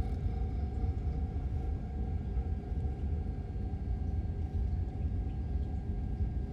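Steady deep spaceship engine rumble with a constant hum tone held above it, a soundtrack effect for the craft in flight.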